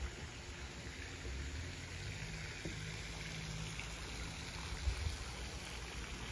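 Steady splashing hiss of a pond's fountain spraying water, with a low rumble underneath.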